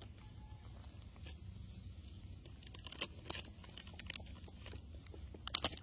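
Faint small clicks and taps of a baby monkey handling and eating food, with a quick cluster of clicks near the end. One short high chirp, rising then falling, sounds about a second in.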